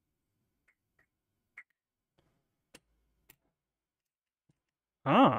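A few faint, sharp clicks, spaced out, as the brass quick-disconnect fitting of an air line is handled against a small HPA airsoft regulator. Near the end a short, louder burst of voice.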